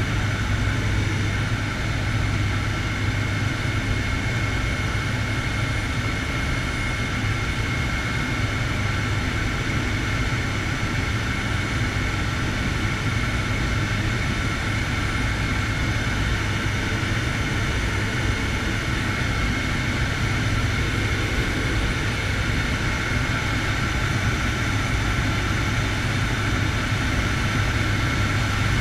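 Air Tractor 502's Pratt & Whitney PT6A turboprop and propeller running steadily in flight, heard from inside the cockpit: a constant drone with a high turbine whine over a low propeller hum.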